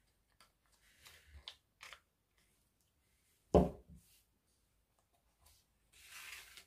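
Faint scraping of a glue stick rubbed over folded origami paper. About three and a half seconds in, the glue stick is set down on the table with a single solid knock and a lighter tap just after. Soft rustling of the paper pieces being picked up near the end.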